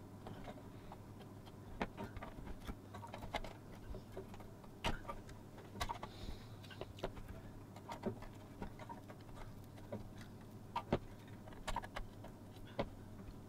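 Pliers clicking and scraping on the small metal tags of a toy truck's metal chassis as the tags are bent straight: faint, irregular ticks and taps, with a few sharper clicks.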